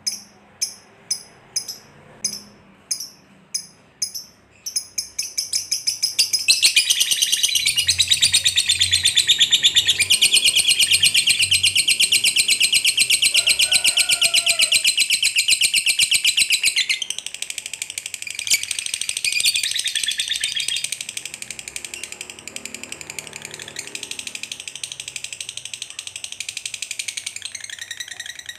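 Masked lovebird singing: separate sharp chirps about two a second, then from about six seconds in a long, fast, unbroken rattling chatter, the 'ngekek panjang' prized in lovebirds, which drops to a softer rapid chatter after about seventeen seconds.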